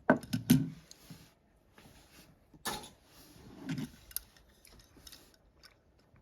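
Small toy cars being handled: scattered clicks, light rattles and rustles, with the louder knocks in the first second and around the middle.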